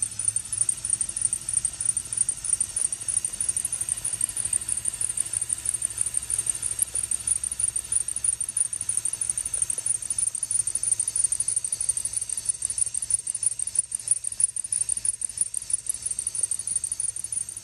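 LEGO Technic truck drivetrain running, giving a steady high-pitched squeak that pulses several times a second, like plastic gears and axles rubbing as they turn.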